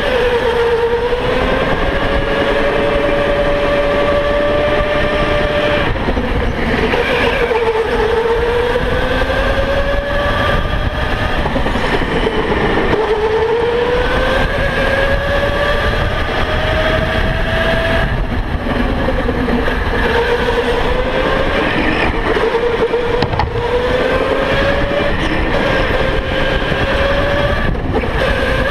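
Electric go-kart motor whining, its pitch climbing as the kart accelerates and dropping back each time it slows for a corner, over and over, over a steady rush of noise.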